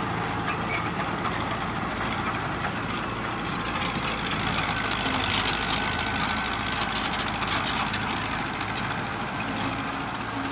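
Small crawler bulldozer's diesel engine running steadily under load as it pushes soil, with added rattle from about three and a half seconds in.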